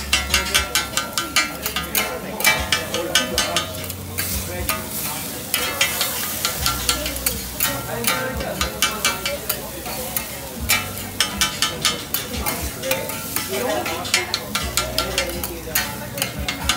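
Metal spatulas chopping and scraping cabbage and fillings on a hot iron teppan griddle: a fast, uneven run of clicking strikes over a steady sizzle. This is the chopping-and-mixing stage of cooking monjayaki.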